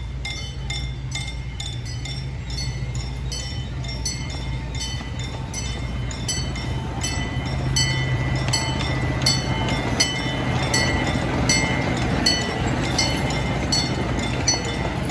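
Miniature C.P. Huntington park train running, its engine a steady low hum under an even clinking about twice a second. The clinking grows a little louder in the second half.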